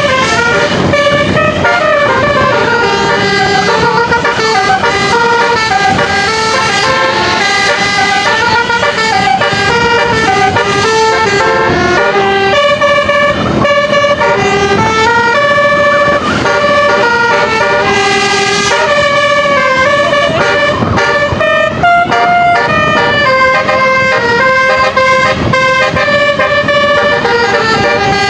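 Basuri telolet horns on tour buses playing a continuous melody of held notes that step from pitch to pitch, several notes sounding at once.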